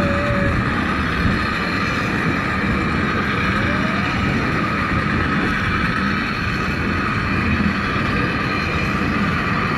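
Water-balanced funicular car of the Lynton & Lynmouth Cliff Railway running down its steep track: a steady rumble of wheels on the rails with a constant high whine over it.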